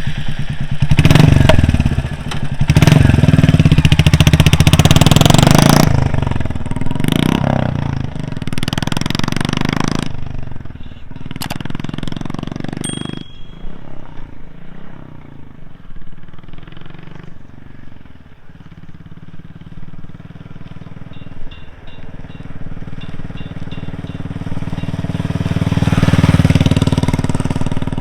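Royal Enfield Classic 350 single-cylinder engine running through a short-bottle aftermarket silencer. It is revved in several throttle blips over the first ten seconds or so, then settles to a steady idle, and swells again briefly near the end.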